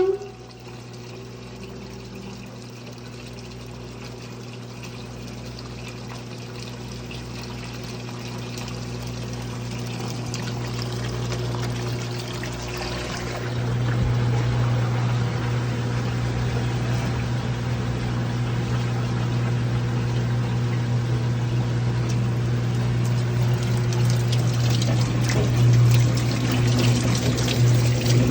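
Kenmore washing machine running with water pouring and splashing over a steady low hum. It grows gradually louder, with a step up about halfway through.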